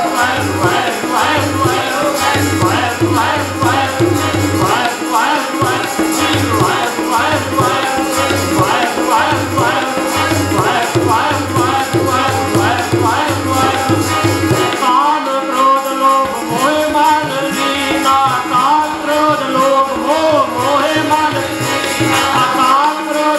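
Kirtan instrumental passage: two harmoniums playing the melody over tabla, with a quick rhythmic patter of drum strokes. About fifteen seconds in, the tabla's deep bass strokes drop out and the harmonium melody carries on more freely.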